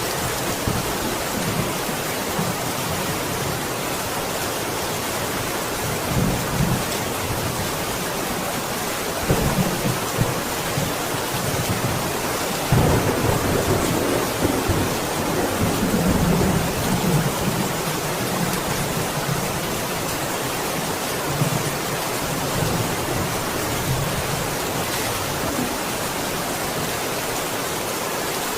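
Steady heavy rain with thunder rolling through it several times, low rumbles that swell and fade; the longest and loudest roll comes about halfway through.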